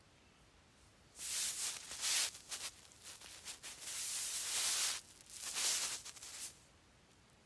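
Cat grooming itself close to the microphone: rasping, rustling noise of tongue on fur in three bursts of about a second each.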